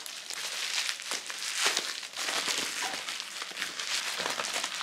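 Honeycomb kraft packing paper crinkling and rustling continuously as it is handled and pulled off a wrapped item.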